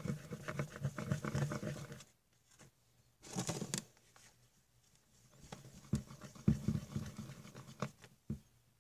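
Sticky shampoo-and-salt slime being squished and worked by hand, giving bursts of small wet crackles and ticks with short quiet pauses between them.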